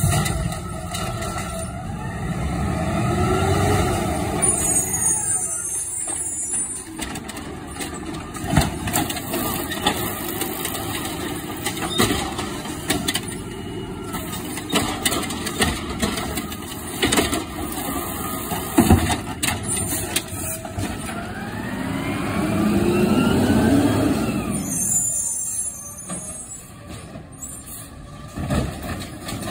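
Automated side-loader garbage truck at work: its diesel engine revs up and back down twice while the lifting arm runs, each rev followed by a sharp air hiss. Several sharp clunks from the arm and carts come in between.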